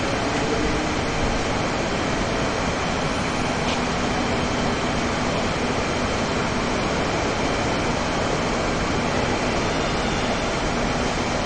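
A steady, even rushing noise with no pitch to it and no breaks.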